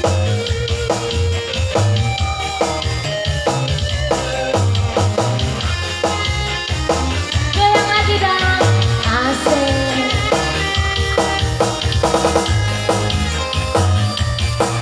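Band music with a steady beat on drum kit and bass, with guitar and other pitched instruments over it.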